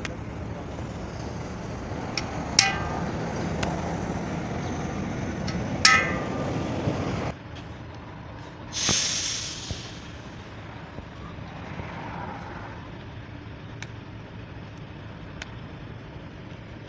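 Truck tyre repair work: a steady machine noise runs and cuts off suddenly about seven seconds in, with two ringing metallic clinks of tools before it. A short burst of hissing compressed air follows, fading over about a second.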